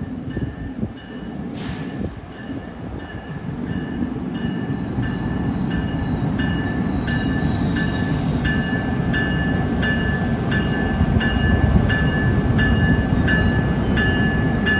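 NJ Transit ALP-46A electric locomotive hauling a passenger train past at low speed, its rumble growing steadily louder as it approaches. A bell rings steadily, about two strokes a second.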